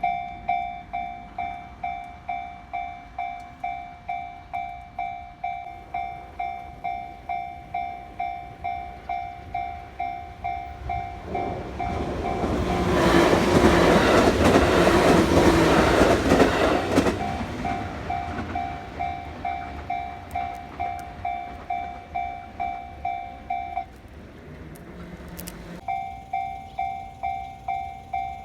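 Japanese railway level-crossing warning bell dinging in a fast, even rhythm while a train passes over the crossing, loudest for about five seconds in the middle. Near the end the bell stops for about two seconds, then starts dinging again.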